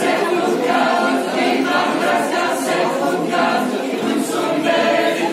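A group of voices singing an Occitan dance song together, unaccompanied, with a steady pulse.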